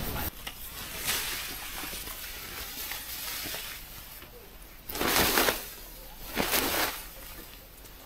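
Nylon tarp fabric rustling and swishing as it is lifted and taken down, with two loud swishes about five and six and a half seconds in.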